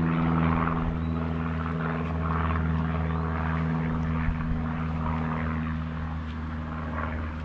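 Large swarm of honeybees buzzing loudly around a disturbed colony, a steady low hum with a hazy drone above it that eases slightly near the end.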